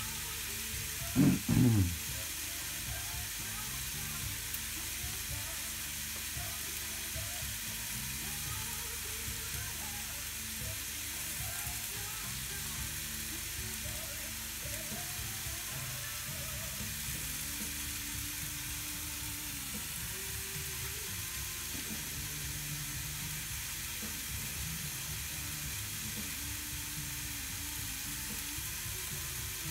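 Ribeye steak sizzling steadily between the closed hot plates of a Tefal Optigrill XL contact grill. A brief, louder sound with a falling pitch comes about a second and a half in.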